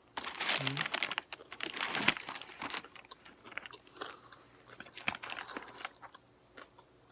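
Close-miked biting into a Subway Italian BMT sandwich on Italian bread and chewing: dense crackly crunching for the first few seconds, with a brief hummed "mm" near the start, then quieter, scattered chewing smacks.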